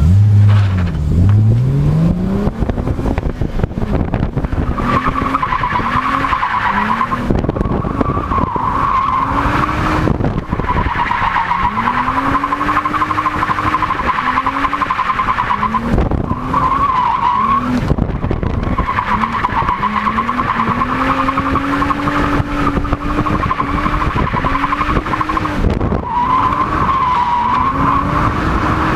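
BMW E30's M20B27 straight-six revving up and down over and over as the car drifts, the engine note rising and falling with each throttle stab. Tyres squeal in several long stretches of a few seconds each, wavering in pitch.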